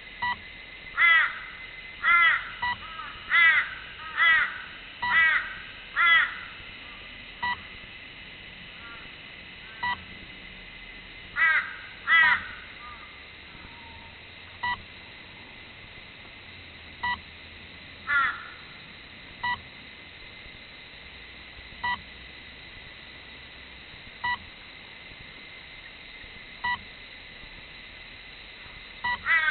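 Crows cawing, a run of six loud caws in the first few seconds and a few more later on, over a short electronic beep that repeats about every two and a half seconds.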